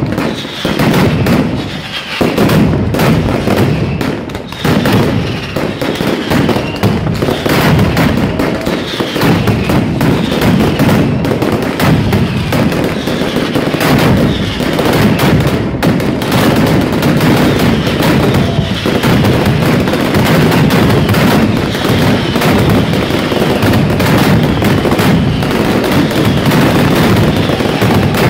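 A traca, a chain of firecrackers, going off in a dense, continuous rattle of bangs, with short falling whistles about once a second.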